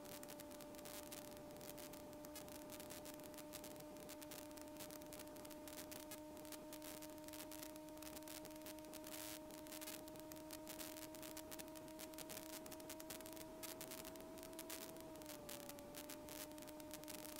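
Faint, steady electrical hum in a light aircraft's radio and intercom audio, with a light hiss; the hum dips slightly in pitch about fifteen seconds in.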